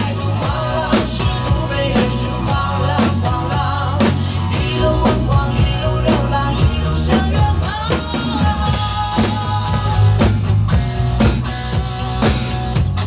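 Two acoustic drum kits played together in a steady rock beat of kick, snare and cymbals, over a backing track of a pop song with a singer's voice. The cymbals wash up loudly about nine seconds in.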